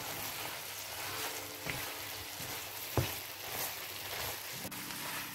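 Okra cooking in a coconut-milk gravy, sizzling steadily in a frying pan, with a single sharp knock about three seconds in.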